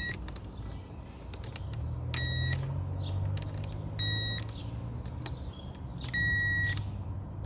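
Power Probe 3 circuit tester beeping three times, about two seconds apart, as its tip touches the fuses' test points; the high tone signals voltage present, so each fuse is good. A low hum runs underneath, with light clicks of the probe on the fuses.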